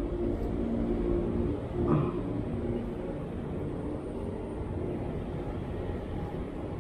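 A steady low rumble with an engine-like hum that fades out about two seconds in, leaving an even low rumble.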